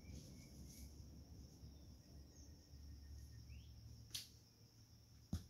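Near silence with a faint steady high insect drone and a few short bird chirps, broken by a sharp click about four seconds in and a short thump near the end.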